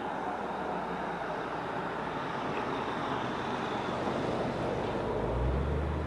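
A vehicle passing on the road: a steady rush of tyre and road noise that slowly swells, with a low engine hum coming in near the end.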